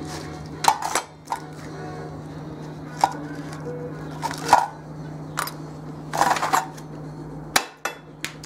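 Scattered clanks and knocks of scrap metal and handling noise as the camera is carried through the workshop, over a steady low hum that cuts out briefly near the end.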